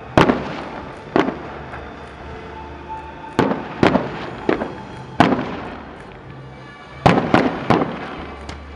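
Aerial firework shells bursting, about ten sharp bangs at irregular intervals, some in quick clusters. Each bang fades in a short rumbling tail.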